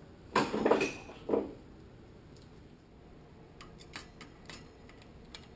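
Metal transmission parts and hand tools clattering on a steel workbench. There is a loud clatter about half a second in and a smaller one about a second later, then a few light metallic clicks.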